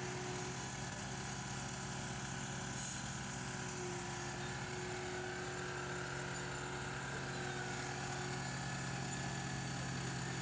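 A heavy machine's engine running steadily, a constant low hum with a faint whine above it.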